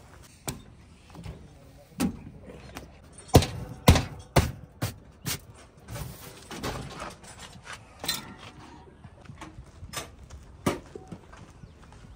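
Irregular sharp knocks and clatters, a dozen or more, with the loudest cluster about three to four seconds in.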